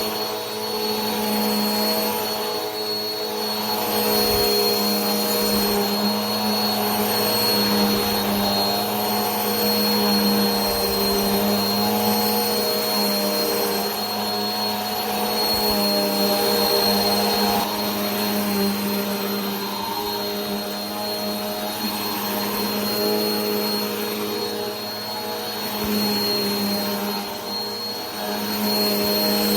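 Vacuum cleaner running continuously: a steady motor hum with a high whine over a rushing airflow, the pitch and loudness swelling slightly now and then.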